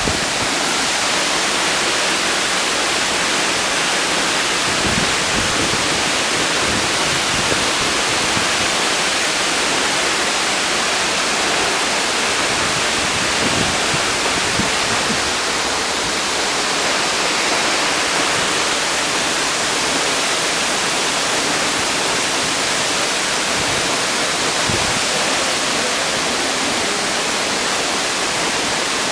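Tosah waterfall's water pouring down: a steady, loud rushing noise.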